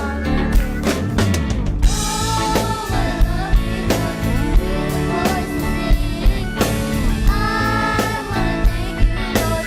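Children's choir singing a praise song over a band with a steady drum-kit beat.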